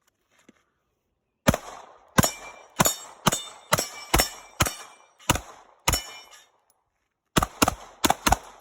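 Gunshots in a live-fire drill: about nine shots at a steady pace of roughly two a second, a pause of over a second, then a fast string of four more near the end, each with a short echo.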